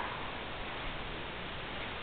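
Tropical rainforest ambience: a steady, even hiss with no single call standing out.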